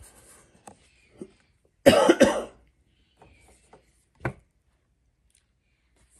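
A man coughing twice in quick succession about two seconds in, with a smaller cough-like sound just after four seconds and faint ticks of playing cards being handled.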